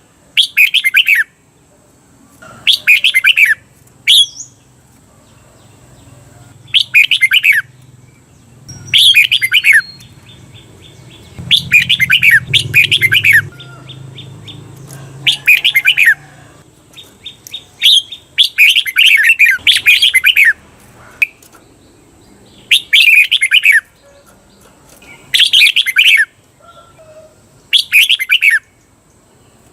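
Red-whiskered bulbul singing: about ten short, bright whistled phrases, each a second or so long, separated by pauses of one to three seconds. The recording is of the doubled 'double' (เบิ้ล) song style used to train caged bulbuls.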